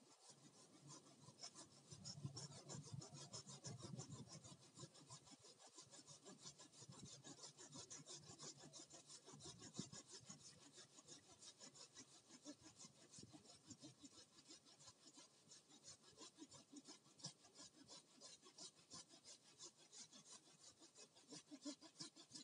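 Hand saw cutting through a bamboo stem, a faint, steady rhythm of quick back-and-forth strokes.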